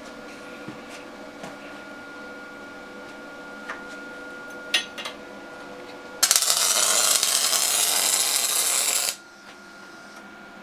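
An electric welding arc crackling steadily for about three seconds, starting about six seconds in, as a steel piece is tacked in place. Before it there is a steady electrical hum with a few light metal clicks.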